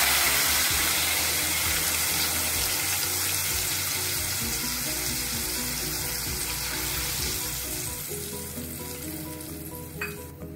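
Water poured into a kadhai of hot oil tempered with mustard seeds, cumin, asafoetida and turmeric, the oil sizzling hard as the water hits it and then gradually dying down as the water heats through.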